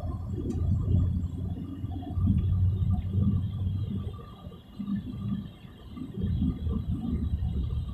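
Wind and road noise in a moving car: a low rumble on the microphone that swells and fades unevenly.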